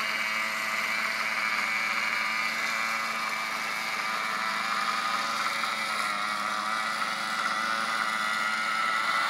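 Small gasoline engine running steadily at a constant speed, an unbroken even hum with no changes in pitch.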